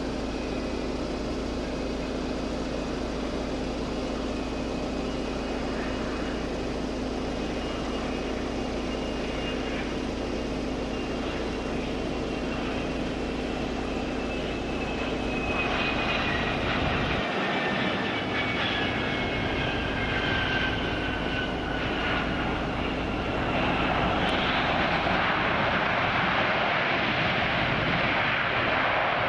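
American Eagle Embraer regional jet landing: the steady rush of its two rear-mounted turbofans. About halfway through it grows louder, with a thin whine that slowly falls in pitch, and it grows louder again near the end as the jet rolls out on the runway.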